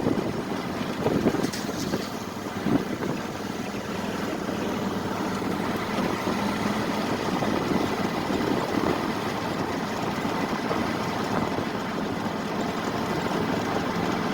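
An engine running steadily, with a few brief louder bits in the first few seconds.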